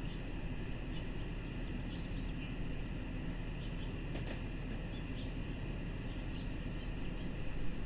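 Steady outdoor background noise with a low hum, like distant traffic, and a few faint, short bird chirps. No siren is sounding.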